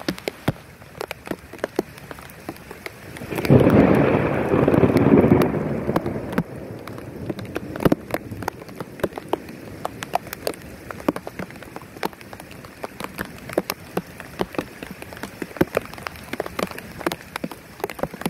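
Rain falling, with single drops ticking sharply close by throughout. About three seconds in a peal of thunder sets in, loud for two to three seconds, then fades away over the next few seconds.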